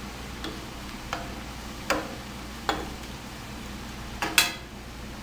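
Plantain slices sizzling in hot oil in a frying pan, a steady frying hiss, while a slotted metal spoon turning them clicks against the pan about once a second, with two quick knocks near the end, the last the loudest.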